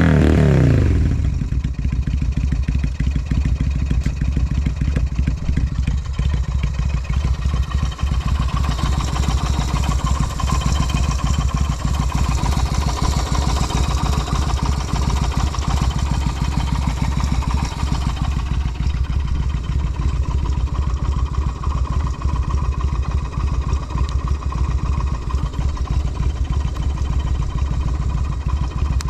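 Yamaha Renaissa's 249 cc air-cooled V-twin through a SuperTrapp exhaust: a blip of the throttle falls away in the first second, then the engine idles steadily. The seller says it runs with no abnormal noises.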